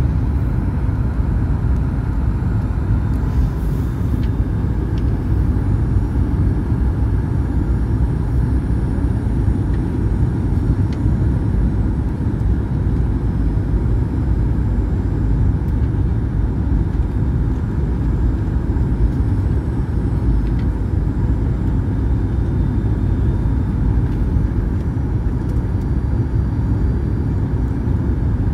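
Steady low cabin noise of a Boeing 737-800 on approach, the airflow over the fuselage and its CFM56-7B engines, heard from inside the passenger cabin.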